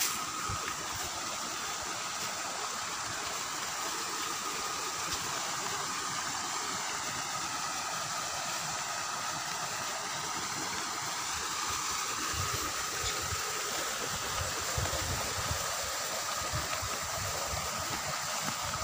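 Steady rush of water spouting from inlet pipes into a fish pond, with a steady high whine running through it. Occasional low bumps come in about two-thirds of the way through.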